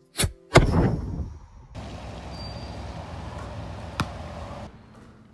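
Two sharp hits with a fading rush in the first second, then a steady background hiss. About four seconds in comes a single sharp knock of a basketball bouncing on an outdoor hard court.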